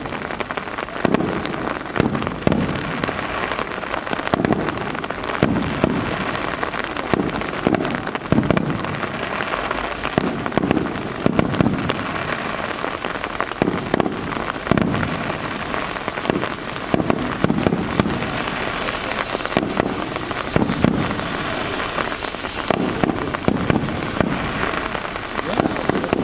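Steady rain, with many drops ticking sharply close by, and dull low thumps every second or two underneath.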